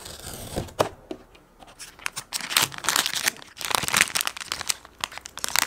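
Blind-box packaging being torn open and crinkled by hand, an irregular run of crackling and tearing that grows busier about two seconds in.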